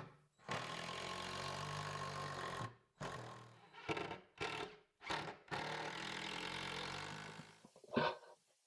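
Cordless power driver driving long screws in several runs: two steady stretches of about two seconds each, with shorter bursts between them and brief pauses.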